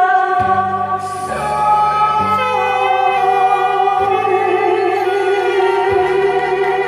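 A woman singing a slow Korean ballad over an amplified backing track, holding long notes above a bass line that changes note about once a second.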